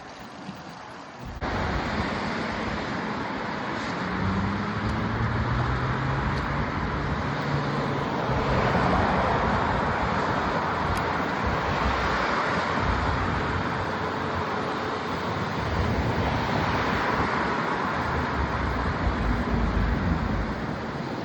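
Steady rush of wind and road noise with motor traffic going by, setting in suddenly about a second and a half in; low engine hum rises and falls underneath.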